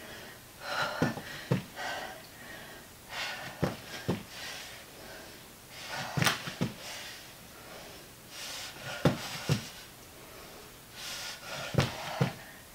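Hard, rhythmic breathing of a person doing jack push-ups, with a pair of thumps on the floor about every two and a half seconds as the feet jump out wide and back together.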